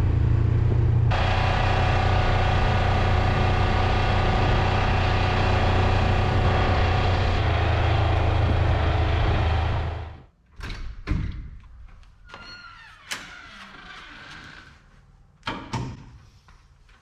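A vehicle engine runs steadily and is shut off about ten seconds in. It is followed by a few door clunks and knocks.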